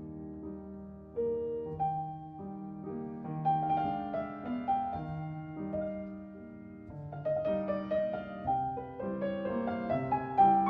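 Soft solo piano music: slow melodic notes over sustained chords.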